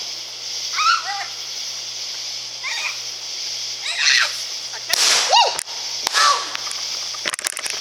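Small consumer firework going off, a burst of crackling followed by a quick cluster of sharp pops near the end.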